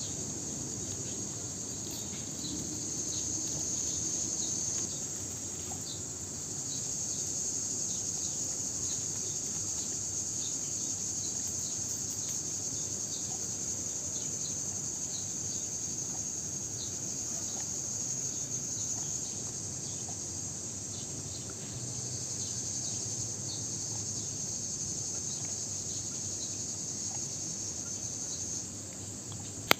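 Steady high-pitched insect chorus, like crickets trilling without pause, with faint scattered clicks beneath it.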